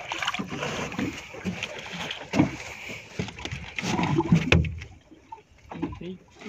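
Two hooked crescent grunters (Terapon jarbua) splash at the surface as they are lifted out, then flap and knock on the fibreglass boat deck and a wooden plank. There is splashing for the first few seconds and irregular knocks and thumps, heaviest about four seconds in.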